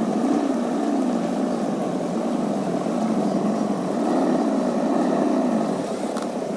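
An RC truck's motor and drivetrain whining steadily, the pitch rising and falling as the throttle changes. There is a single click about six seconds in.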